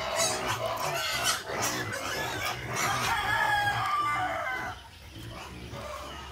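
Backyard chickens clucking and calling, a busy run of calls that eases off about four and a half seconds in.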